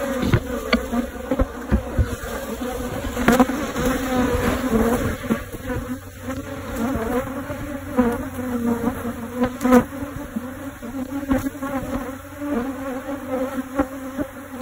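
A honeybee colony buzzing steadily inside a wooden Japanese-style box hive, a low even hum, with a few sharp taps about 3 and 10 seconds in.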